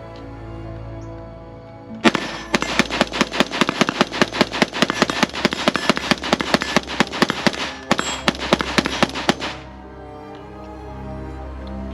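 Springfield Armory Hellion 5.56 rifle fired rapidly, about five shots a second: one long string of about six seconds, a brief pause, then a short second string. Background music plays underneath.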